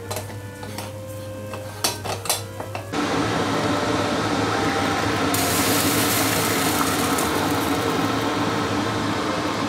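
A few clicks and knocks as an aluminium moka pot is screwed together and handled. Then, about three seconds in, a loud steady hiss starts suddenly and grows brighter a couple of seconds later: the moka pot hissing and sputtering as the coffee is forced up into the top chamber.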